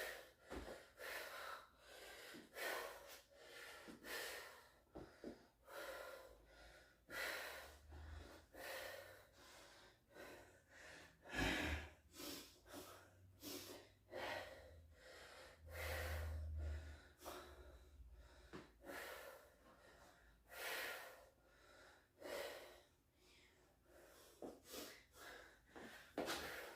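A man breathing hard from deadlift exertion, faint short breaths about one a second, with one louder burst about halfway through.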